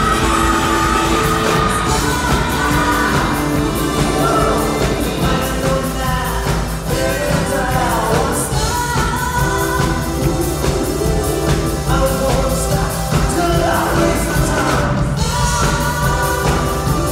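Live band playing a pop-rock song, with singing over electric guitars, bass, drums and keyboards, heard from the audience in a large hall.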